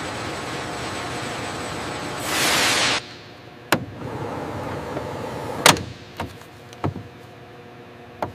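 Steady machine hum with a brief hissing rush of air about two seconds in that cuts off sharply. Then a handful of separate metal clicks and clunks from fittings on the seat rails, the loudest about two-thirds of the way through.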